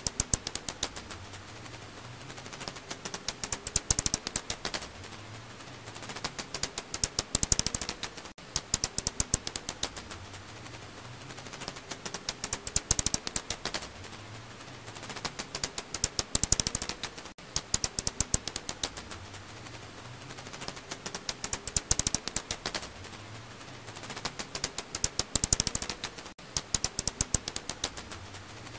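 Echolocation calls of a 검은집박쥐, the Alashanian pipistrelle (Hypsugo alaschanicus): bursts of rapid clicks, each about a second long, recurring every three to five seconds.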